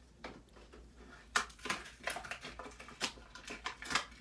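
Irregular clicks, taps and scraping of small hard parts being handled as a die-cast toy car is opened up, with a sharper click about a second in and two more near the end.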